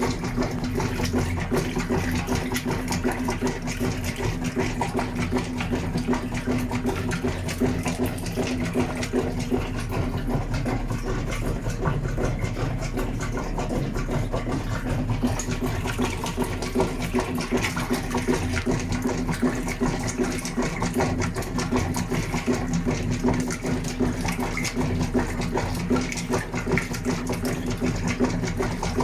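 GE washing machine running, a steady, unbroken motor hum.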